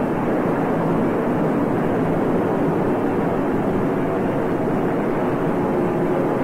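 Steady drone of a tanker aircraft's engines and airflow in flight, with the refueling drogues trailing behind.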